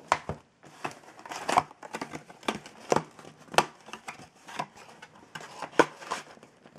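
A cardboard trading card box being opened and handled: irregular scrapes, taps and crinkles of cardboard and plastic wrapping.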